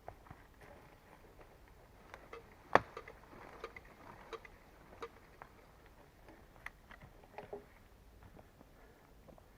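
Scattered light knocks and clicks at an uneven pace, with one sharp knock about three seconds in.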